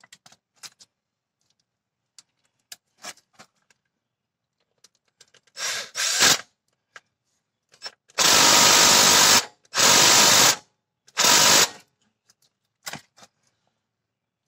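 Cordless 20 V power tool tightening the center bolt of a new AC compressor clutch plate, run in short bursts: two brief ones about six seconds in, then three longer runs, after a few light clicks of handling.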